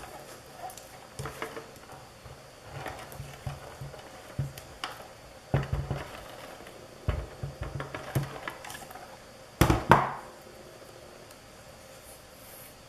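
Paper and craft supplies handled on a tabletop: light rustles, scrapes and taps, with a louder pair of knocks about ten seconds in.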